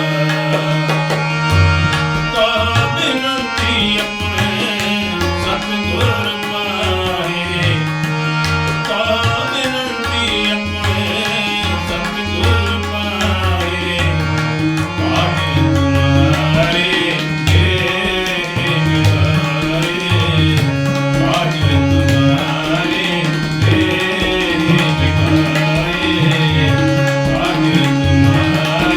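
Gurbani kirtan music: tabla playing a busy rhythm under held melodic notes, without clear sung words.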